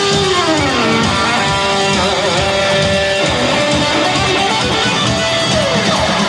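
Rock band music in an instrumental passage: an electric lead guitar plays held notes and slides down in pitch over strummed guitar, bass and drums.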